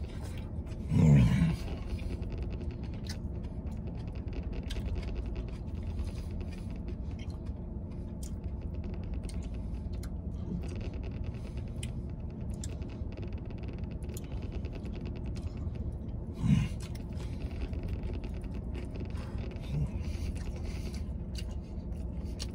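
A man eating a burger, with faint wet chewing and lip clicks, and low 'mmm' sounds from his throat about a second in and again around sixteen seconds. A steady low hum fills the truck cab underneath.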